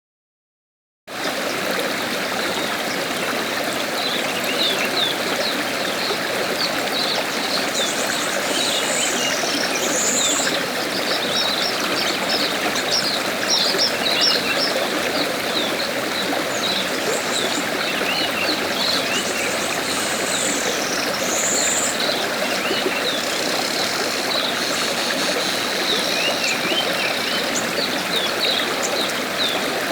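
River water flowing steadily, with birds chirping over it throughout, sparrows among them. It cuts in about a second in, after a moment of silence.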